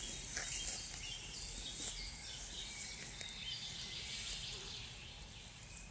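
Forest ambience: faint birds and insects over a steady hiss, with footsteps rustling through dry leaf litter now and then.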